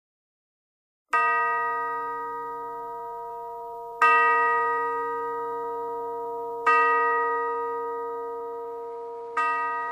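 A ringing chime struck four times, about every two and a half to three seconds, each strike at the same pitch and slowly dying away until the next one.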